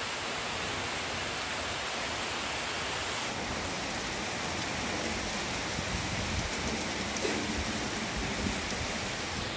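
Heavy monsoon-style rain falling steadily onto open ground and puddles, an even, unbroken hiss.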